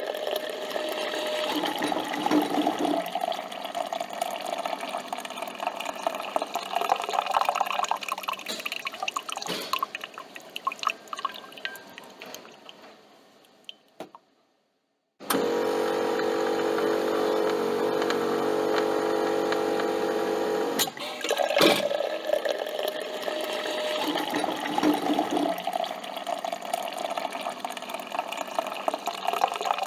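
Coffee machine brewing: coffee streaming and dripping into a cup. A brief dead silence about halfway through is followed by several seconds of the machine's steady electric hum, which ends with a click; then the liquid sound returns.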